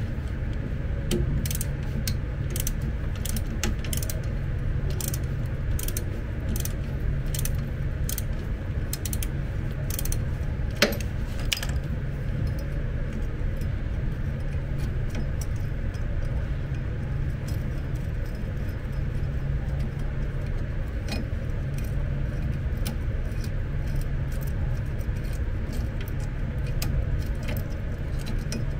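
Ratchet wrench clicking as a screw is turned out, about two clicks a second for the first twelve seconds or so, then only a few scattered clicks. A steady low hum runs underneath.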